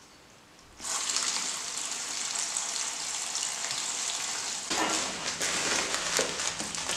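Water running from a garden hose into a makeshift pool-liner tub around steel lathe rods, a steady splashing hiss that starts about a second in.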